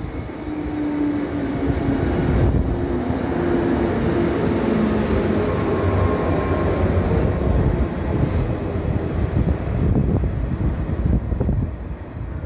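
JR 115-series electric multiple unit pulling into a platform and braking: wheels rumble and clatter on the rails as the cars pass close by. Low tones slide down in pitch as it slows, and near the end short high-pitched brake squeals come as it stops.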